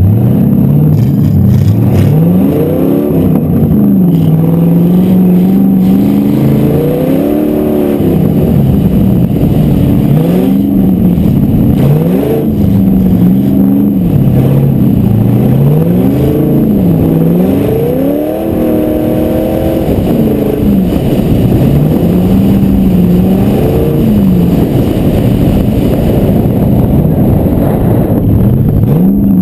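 Ute engine revved up and down over and over as the ute is driven hard around a cone course on grass, the pitch rising and falling every couple of seconds, heard up close from the bonnet.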